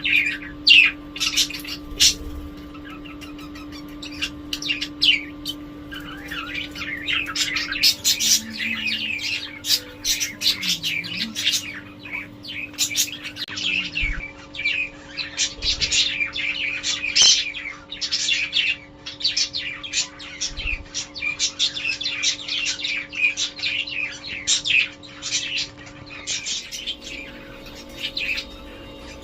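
Budgerigars chirping and chattering, a busy run of short, high twittering calls. The calls are scattered at first, then grow dense and near-continuous a few seconds in. A faint steady hum runs underneath.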